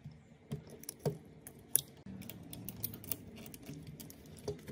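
Clicks and light rattles of an old speaker's circuit board and its wire leads being handled by hand: a dozen or so sharp ticks, irregularly spaced, the loudest a little under two seconds in.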